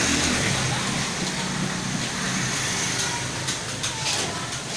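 Computer keyboard keys clicking irregularly during a typing speed test, over a steady low background rumble.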